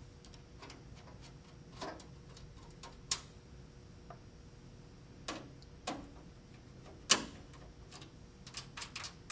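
Scattered small clicks and light knocks of a screwdriver and the case screws being worked and handled at the metal back of a desktop computer tower. The loudest click comes about seven seconds in, followed near the end by a quick run of small clicks.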